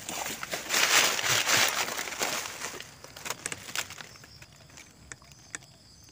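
Rustling and handling noise in bursts while the rifle is moved, fading out about three seconds in. After that a steady high insect trill with a few faint clicks.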